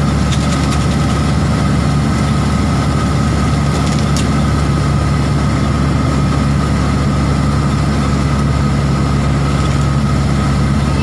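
Tractor-trailer truck's diesel engine running steadily, an even low hum that holds without change.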